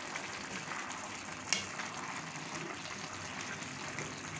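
Minced beef and spinach in a pan of watery liquid being stirred with a spatula: steady bubbling and sloshing, with one sharp knock against the pan about a second and a half in.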